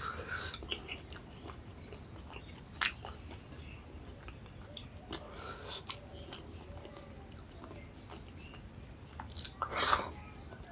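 A person chewing and eating a meal of rice and curry close to the microphone, with scattered wet mouth clicks and smacks. There is a louder burst of eating noise near the end.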